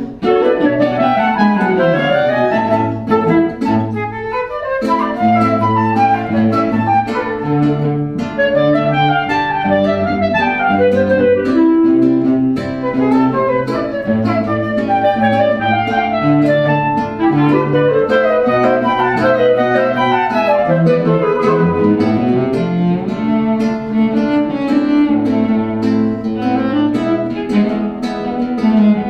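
Instrumental ensemble music: a busy texture of quick melodic lines over a bass line that moves in short repeated notes.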